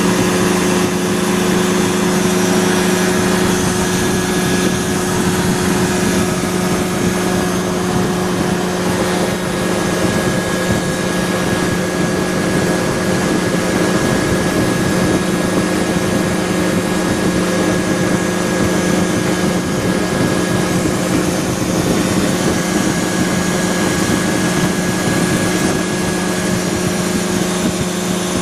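ASAP Beaver SS ultralight aircraft's engine and propeller running steadily at constant power in flight: an unchanging drone with a steady hiss over it.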